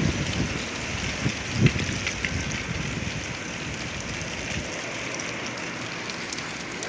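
Strong gusting wind blowing, with low buffeting thumps of wind on the microphone in the first two seconds, then a steadier rushing hiss.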